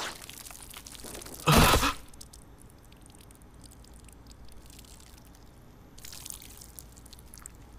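Blood dripping in a quiet, blood-spattered room, heard as faint scattered drips, with one loud, short hit about one and a half seconds in.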